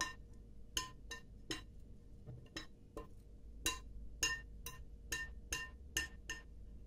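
Metal spoon stirring thick chocolate cake batter in a glass mixing bowl, clinking against the glass about twice a second, each clink ringing briefly.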